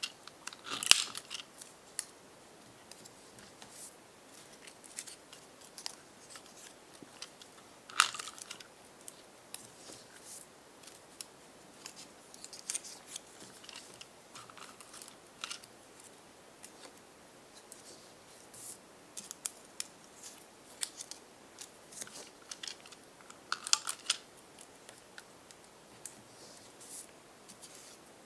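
Double-sided tape pulled from a handheld dispenser and torn off in short lengths, with paper being handled and pressed down in between. It is a string of short crackling tears and small clicks, three of them louder than the rest.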